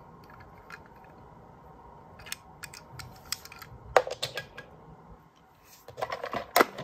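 Scattered small clicks and clattering of toy cars being handled, loudest about four seconds in and again in a quick run near the end, over a faint steady hum.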